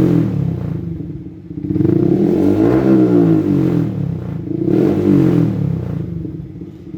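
Yamaha R15 V3's 155 cc single-cylinder engine revved on the stand through an R9 H2 series aftermarket exhaust with the dB killer removed. A rev falls away at the start, then two more rises peak about three and five seconds in, each dropping back toward idle.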